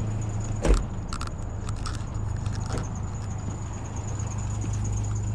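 A 1997 Ford Ranger pickup idling with a steady low hum, a single loud thump less than a second in, then a few light metallic clinks.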